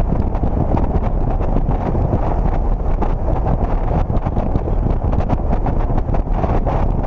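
Wind buffeting the microphone of a camera mounted on the outside of a moving car: a steady, low rumbling rush over the sound of the car driving.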